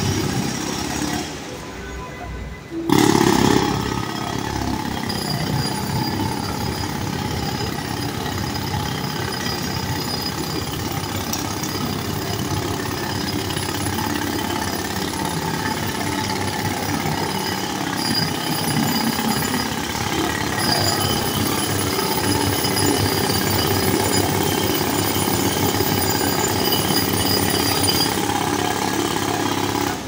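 Pneumatic jackhammers hammering continuously in street construction. The noise drops away about a second in and comes back loud about three seconds in, then holds steady.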